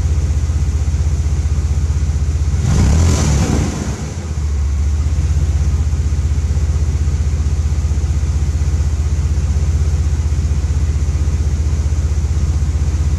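Supercharged SUV engine with a Vortech centrifugal supercharger idling with a steady low pulse. About three seconds in it gets one short rev, a louder rush lasting about a second, then dips and settles back to idle.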